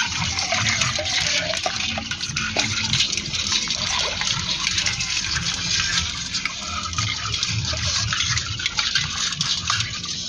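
Shallow pond water sloshing and splashing steadily, with many small crackling ticks over the wash of water.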